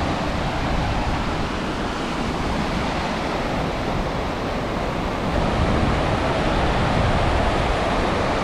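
Mountain creek rushing in whitewater rapids over rocks and fallen logs: a steady, loud rush of water.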